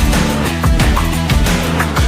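Background music with a driving electronic beat: regular drum hits over a steady bass line.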